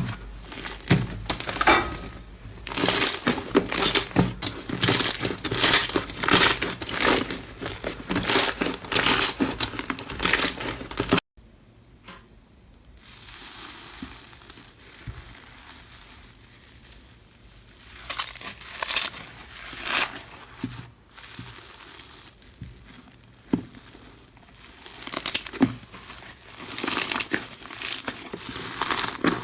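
Slime being squished and pressed by hand, with dense, rapid crackling and popping. About eleven seconds in it stops suddenly, giving way to a quieter soft hiss with scattered pops, and the crackling builds again near the end.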